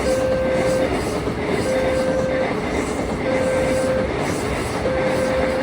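Railway level-crossing alarm sounding a two-tone warning, alternating a higher and a lower tone, each held just under a second, over the steady noise of a train passing through the crossing with its wheels clattering.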